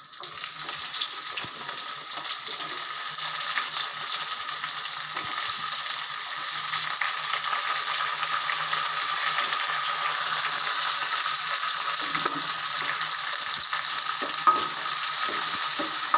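Chopped onions frying in hot sesame oil with garlic in a kadai: a steady sizzle that jumps up right at the start as they go into the oil, with faint clicks of stirring.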